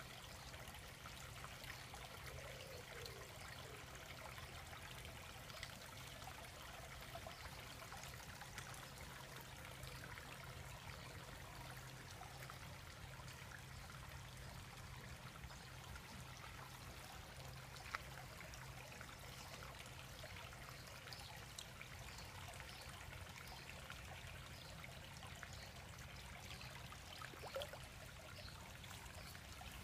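Faint, steady trickle of water in a garden koi pond, with a low steady hum underneath and a single sharp click a little past halfway.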